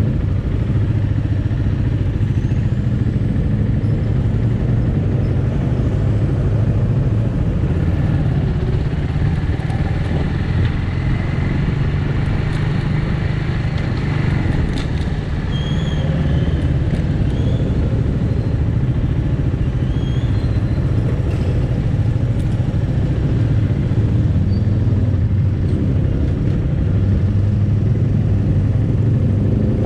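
Bristol 250 Classic motorcycle's 250cc engine running steadily at low speed in slow city traffic, with a few short high chirps midway through.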